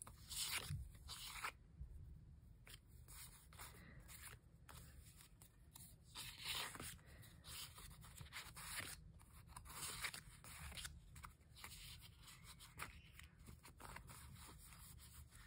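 Faint, intermittent rustling and crinkling of sticker sheets and paper pages being leafed through and handled.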